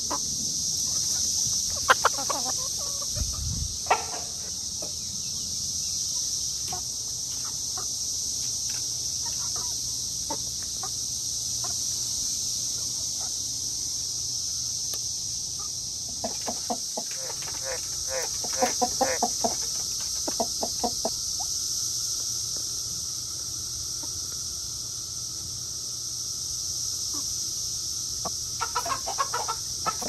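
Hens clucking in short clusters, about two seconds in, again around the middle and just before the end, over a steady high-pitched insect buzz.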